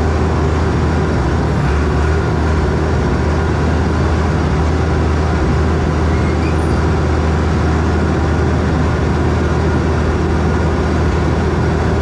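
Bulldozer's diesel engine running steadily at constant speed as the dozer is driven, a continuous low drone with no change in revs.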